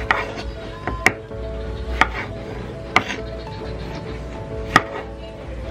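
Chef's knife slicing cherry tomatoes on a wooden cutting board, the blade knocking the board five times, about once a second.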